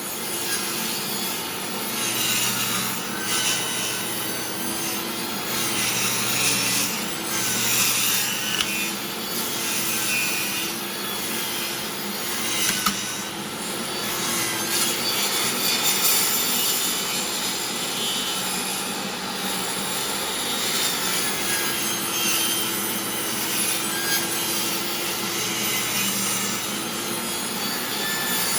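Old DeWalt table saw running and cutting wood as a board is turned over the blade to cut a disc, the cutting sound rising and falling under a steady motor hum. One sharp click about halfway through.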